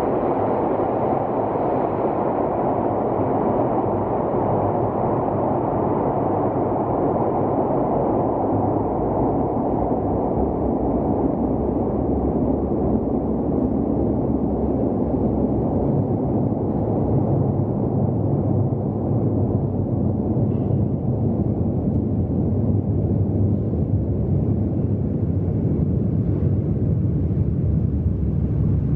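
Steady low rumble of a Nagano Electric Railway electric train running in the underground tunnel, its higher sound slowly dulling as it carries on.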